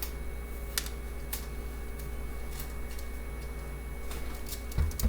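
Light, sparse clicks and taps of small plastic printer parts being handled and fitted into place, with a few louder knocks near the end, over a steady low hum.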